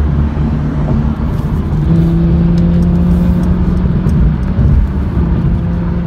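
Cars at motorway speed heard from inside a moving car: tyre and road rumble with a steady engine drone that steps up slightly in pitch about two seconds in, as a Porsche 911 GT3 RS overtakes and pulls away.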